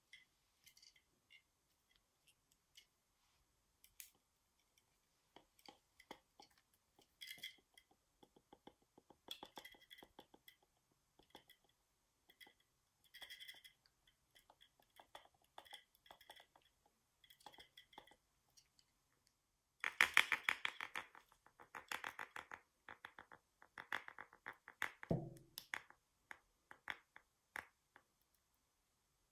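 Squashing sounds as modelling dough is pressed onto a rubber balloon and a plastic figure: scattered small clicks and crackles, then a denser crackling crunch about twenty seconds in, with a short squeak falling in pitch about five seconds later.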